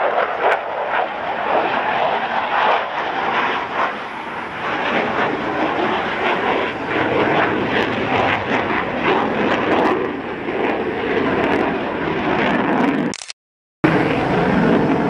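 Jet noise from an F-16 fighter's single afterburning turbofan engine as the jet flies its display overhead: a dense, continuous rumble that swells and eases as the aircraft manoeuvres. The sound breaks off completely for about half a second near the end.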